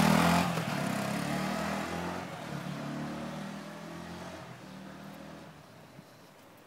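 Yamaha R125's 125 cc single-cylinder four-stroke engine, loud at first and then fading steadily over about five seconds as the bike moves away.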